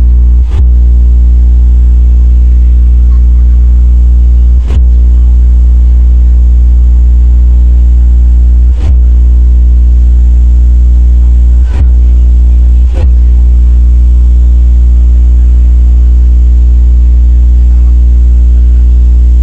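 Large sound system's subwoofers playing a very loud, steady low bass test tone during a sound check, cut briefly five times.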